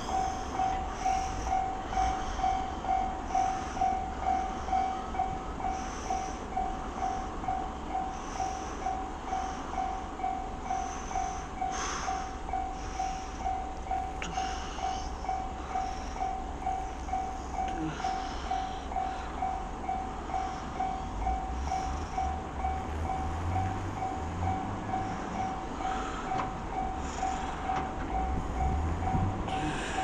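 Japanese railway level-crossing alarm bell ringing, a steady repeated electronic ding about twice a second, warning of an approaching train.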